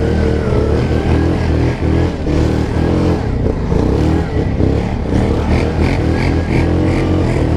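ATV engine, a Yamaha Grizzly 700's single-cylinder four-stroke, pulling hard up a steep snowy climb, its revs rising and falling unevenly.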